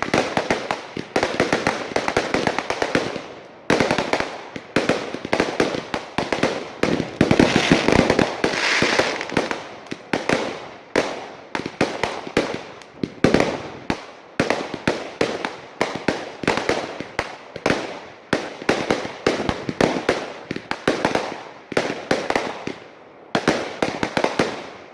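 Fireworks going off in a continuous barrage of sharp bangs and crackles, several a second, thickening into a dense crackle about a third of the way in.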